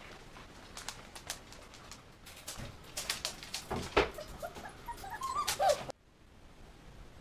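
German Shepherd puppies in a wire pen: scattered clicks and scuffling, busier in the second half, with a few short, rising whines and yelps before the sound cuts off suddenly about six seconds in.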